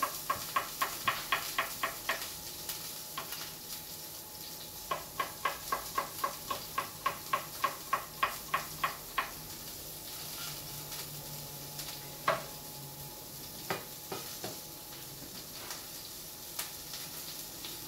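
Knife chopping spring onions on a plastic cutting board: quick, even strokes about five or six a second in two runs, at the start and again from about 5 to 9 seconds, then a few single knocks. Beneath it, the steady faint sizzle of a beef fillet frying in a pan.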